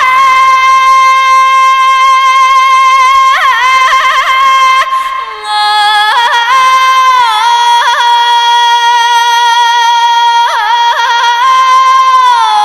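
A high singing voice holds one long drawn-out sung vowel through several steady notes. Quick yodel-like trills and flips between the notes ornament it.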